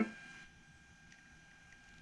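Music playing through the BT201 Bluetooth audio module's speaker cuts off right at the start, leaving a faint steady hiss with a thin high tone from the speaker.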